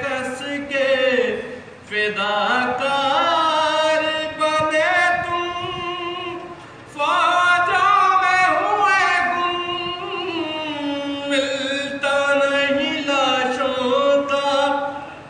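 A man chanting a nauha, a Shia mourning elegy, unaccompanied. His voice moves in long, wavering melodic phrases, with short pauses for breath about two and seven seconds in.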